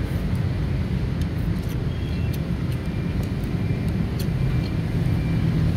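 Steady low background rumble, with a few light clicks and clinks scattered through.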